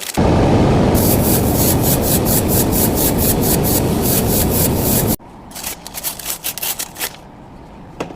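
Sanding on car bodywork: loud, rapid, rhythmic rubbing strokes that cut off suddenly about five seconds in. Quieter, intermittent rubbing follows.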